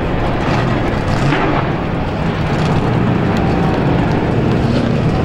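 Several outlaw-class racing stock cars running around a short oval track, a steady, loud engine rumble.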